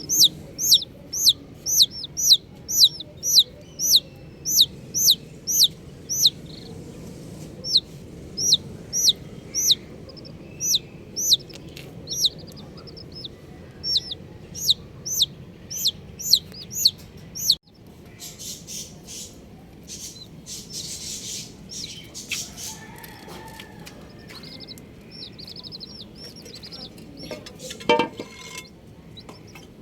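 Baby chicks peeping: a steady run of loud, high, falling peeps, about three a second, that stops abruptly about two-thirds of the way through. After that come fainter, scattered peeps and rustling, with one lower, louder call near the end.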